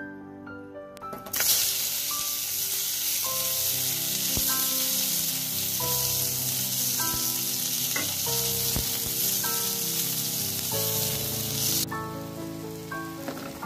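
Sliced onions hitting hot oil in a metal kadai and frying with a loud, steady sizzle while being stirred; the sizzle starts suddenly about a second in and drops away abruptly near the end. A light background melody plays throughout.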